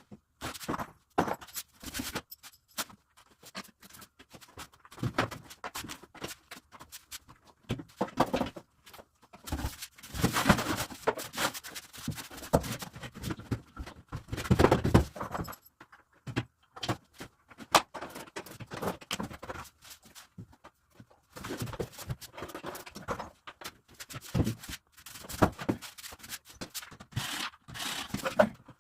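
Irregular knocks, clicks and scrapes of hand work on a sink vanity cabinet being assembled: panels and fittings handled and fitted together, busiest in a couple of stretches.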